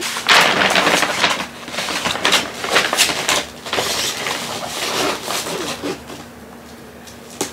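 Glittery wrapping paper crinkling and rustling as it is folded and pressed around a box, in irregular bursts, going quieter about six seconds in.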